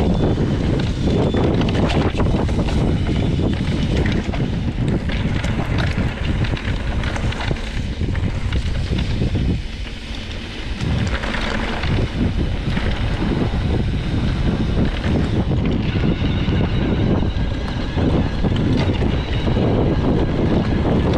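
Wind buffeting a handlebar-mounted action camera's microphone as a mountain bike rolls fast over a dirt and gravel track, with tyre rumble and many small knocks and clicks from the bike jolting over stones. It eases briefly about ten seconds in.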